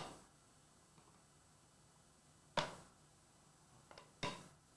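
Two sharp clacks of hard card cases being handled against the metal Flawless Basketball briefcase, the first about two and a half seconds in and the second near the end, with a faint tick just before it.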